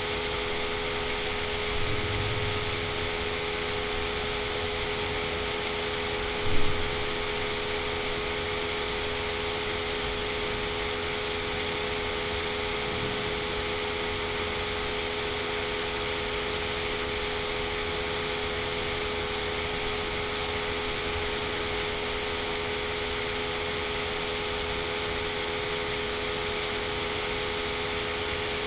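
Steady mechanical hum and hiss with a fixed mid-pitched drone, broken by a short low thump about six and a half seconds in.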